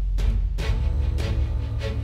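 Background music with a heavy bass and regular percussive hits, about two or three a second.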